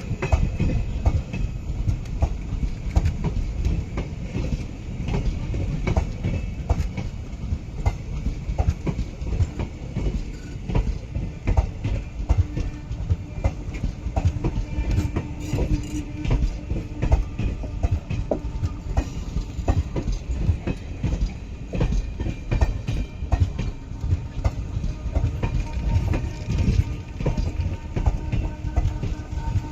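Passenger train's ICF coaches rolling past, with a steady low rumble and a continuous rapid clatter of wheels over rail joints.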